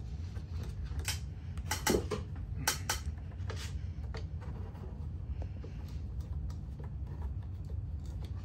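Sharp clicks and taps from the third brake light housing and a screwdriver being handled as the housing is screwed back onto the hatch, a cluster of them about one to four seconds in, then lighter scattered ticks. A steady low hum runs underneath.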